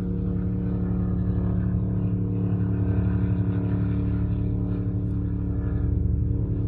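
A car's engine and road noise droning at a steady speed: an even, pitched hum with a throbbing low end that holds unchanged throughout.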